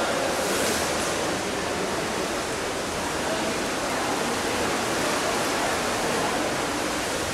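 Steady, even rushing hiss of water heard underwater in a swimming pool, with no distinct splashes or knocks.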